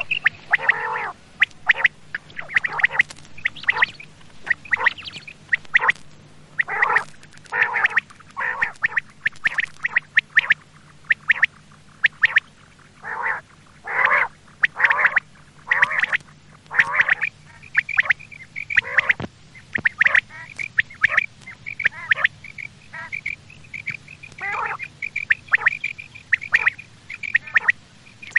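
Common quail calling over and over: short, sharp calls at irregular spacing, in quicker, more regular runs in the second half. A faint steady low hum runs underneath.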